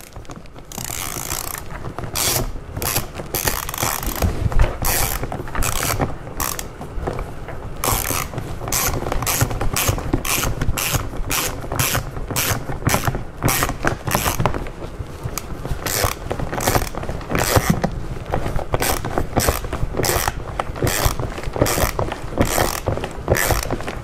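Hand ratchet with an extension clicking in a steady run of quick back-and-forth strokes, about two clicks a second, as it drives in the screws that hold the door handle to the door panel.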